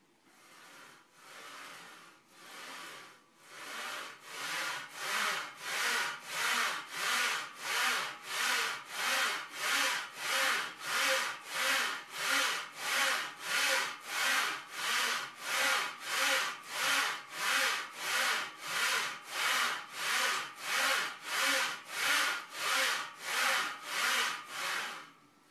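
Regular rasping strokes, about two a second, fading in over the first few seconds and then holding steady before stopping abruptly near the end.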